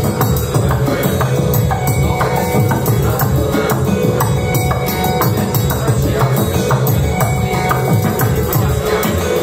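Live glitch-hop electronic music played from a laptop and controllers: a heavy bass line under busy, clicky percussion and a held tone, running without a break.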